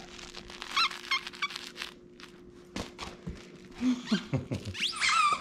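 A squeaky dog toy squeaking a few short times about a second in and once more near the end, with soft knocks of the dog moving about on carpet in between.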